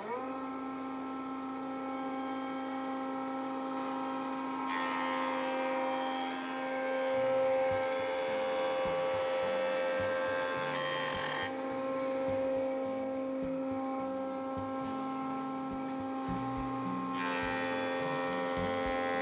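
Benchtop thickness planer starting up with a quick rising whine, then running steadily. Two louder stretches of cutting noise come as a glued-up cherry blank is planed down: a long pass from about five to eleven seconds in, and another starting near the end.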